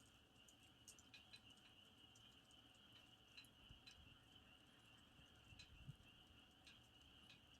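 Campfire crackling faintly, with scattered sharp pops and snaps, over a steady high chirring of insects.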